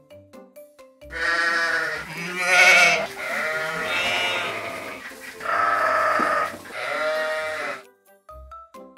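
Sheep bleating, several long quavering bleats in quick succession that begin about a second in and stop about a second before the end. Light background music with short, soft notes is heard before and after them.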